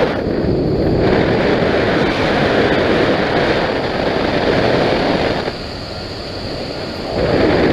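Wind rushing and buffeting over the microphone, a loud, uneven roar that eases for a second or two past the middle and then comes back.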